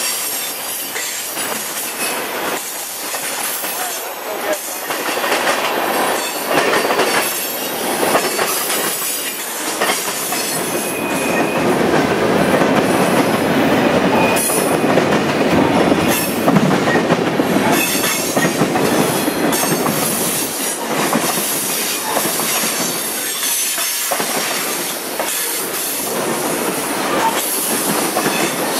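Train cars rolling past, wheels clicking over rail joints, with a thin high-pitched wheel squeal now and then.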